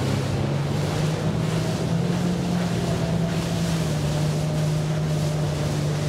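Yamaha 250 SHO V6 outboard pulling a bay boat up onto plane, running at a steady drone with wind buffeting the microphone and water rushing along the hull.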